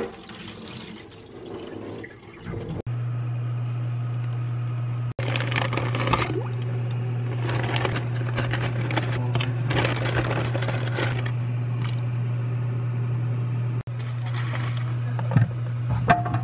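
Water running and splashing, as from a kitchen tap, over a steady low hum. The sound drops out briefly three times.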